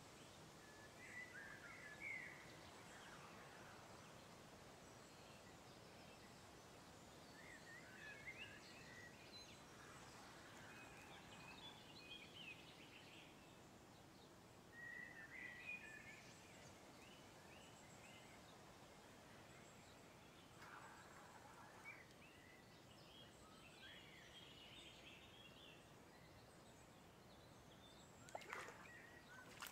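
Faint birdsong, short chirping phrases every few seconds over quiet background hiss, with a few faint clicks near the end.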